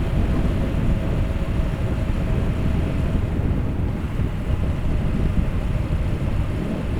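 Wind buffeting the microphone in a steady, loud low rumble, with the noise of vehicle travel on the road beneath it.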